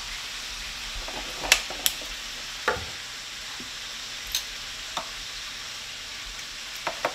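Steady sizzle of chicken frying in hot canola oil, with several sharp clicks of metal tongs against the waffle maker and plate, the loudest about a second and a half in.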